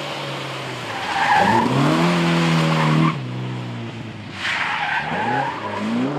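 Historic rally car engines revving hard as the cars pass on a wet road, the engine pitch climbing and then dropping abruptly about three seconds in. Another rising rev follows near the end, over a steady hiss of tyres on wet tarmac.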